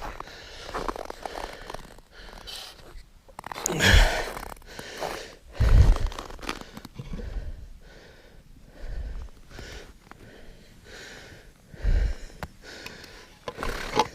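A person breathing and sniffing close to the microphone, with a loud breath about every two to four seconds, some of them thumping against the mic.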